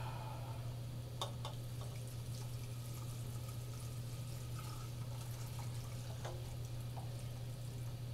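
Thin taro cake batter being poured from a bowl into a metal cake pan, with a spatula guiding it and a few light scrapes and taps on the pan. A steady low hum runs underneath.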